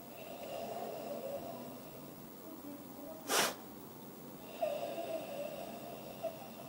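Karate Ibuki breathing in its third pattern. A long, forced exhalation is followed by one short, explosive inhalation about three seconds in, which is the loudest sound. A second long exhalation follows.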